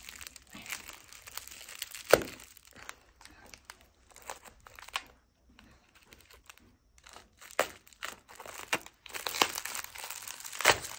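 Bubble wrap crinkling and rustling as it is handled and unwrapped from a small product, in irregular crackles with a sharp click about two seconds in. The crinkling thins out in the middle and grows denser again near the end.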